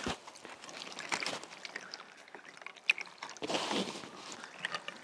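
Eating sounds at a table: chopsticks clicking lightly against stainless steel bowls while cold noodles are stirred and picked up. There are short louder noisy bursts about a second in and again around three and a half seconds in.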